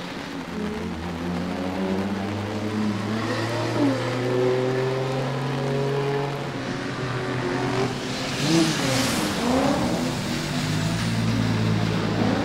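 Toyota GT86's swapped turbocharged 2JZ-GTE straight-six, running on low boost, revving up and down as the car drifts on a wet track, its pitch rising and falling. About eight to nine seconds in, a loud hissing rush rises over the engine. In the last couple of seconds the engine holds a steadier, lower note.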